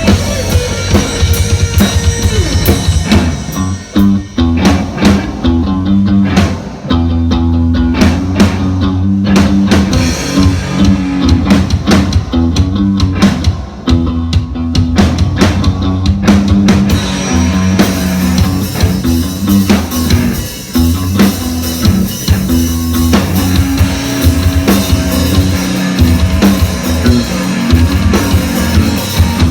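Live band music with a driving drum beat and a repeating bass figure under a looping melodic line. The high end drops away for a stretch in the first half and comes back fuller about eighteen seconds in.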